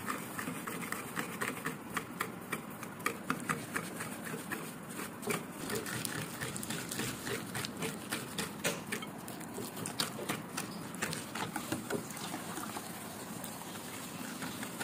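Wire balloon whisk beating butter, sweetened condensed milk and sugar by hand in a bowl, the wires clicking and scraping against the bowl in quick, uneven strokes.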